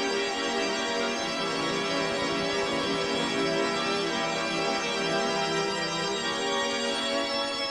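Organ music: sustained, overtone-rich chords that shift slowly.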